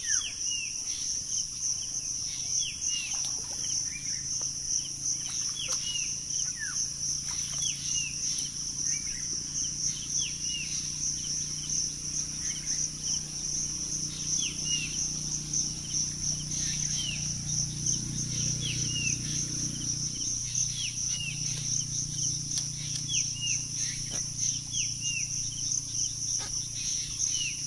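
Steady high-pitched insect chorus with a fine pulsing buzz, over which a bird gives repeated short chirps falling in pitch, a few every second or two. A faint low rumble comes in around the middle.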